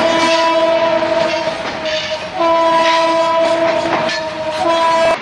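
A diesel locomotive's air horn blowing in repeated long blasts: the first breaks off about a second and a half in, a second runs to about four seconds, and a short one comes near the end, over the rumble and clatter of a passing train.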